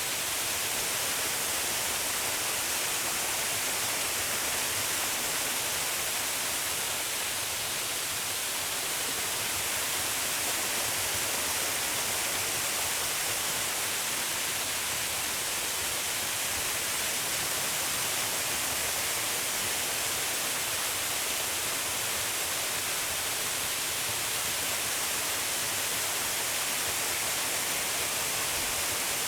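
Waterfall: a steady, even rush of falling water, bright and hissy with little bass.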